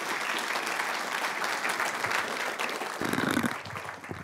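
An audience applauding, a dense patter of many hands that thins out near the end. A low, muffled rumble comes in about three seconds in.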